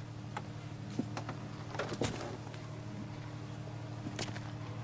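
Car door clicks and knocks as it is opened and a man climbs out, a few separate sharp sounds, over a steady low hum.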